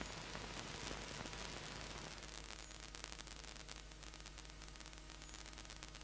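Faint steady hiss and low hum with scattered light ticks: the blank tail of an old film soundtrack transfer, with no programme sound left.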